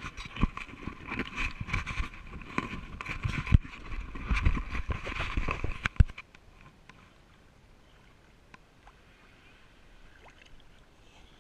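Water sloshing and splashing against a waterproof action-camera housing held at the sea surface, muffled, with irregular knocks of the housing being handled. It cuts off suddenly about six seconds in, leaving only faint water noise.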